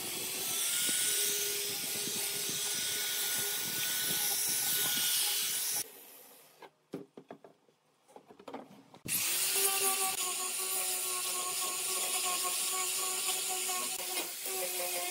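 Angle grinder with a sanding disc running steadily as it sands pine slats. It stops about six seconds in, a few wooden knocks follow as the rack is handled and turned, then the grinder starts again about nine seconds in and runs on.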